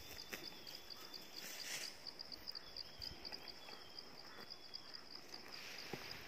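An insect chirping steadily in a rapid, even, high-pitched pulse, faint, with a few soft clicks and rustles from the grazing ox's movements.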